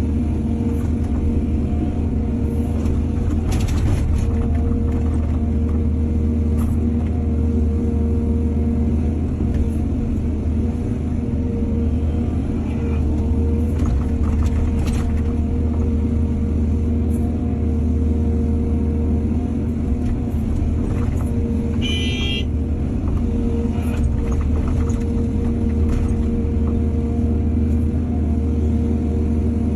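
Excavator's diesel engine running steadily, with a few knocks and a short high-pitched squeal about two-thirds of the way through.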